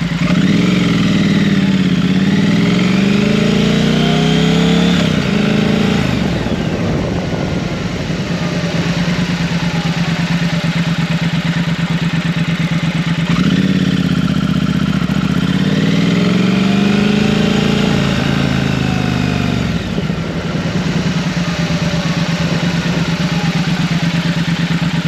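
Triumph Speed Twin 1200's 1200 cc parallel-twin engine on the move, accelerating: the engine note climbs steadily over the first five seconds and drops back. It then runs fairly steady, climbs again from about thirteen seconds, drops back near twenty seconds and settles to a steady cruise.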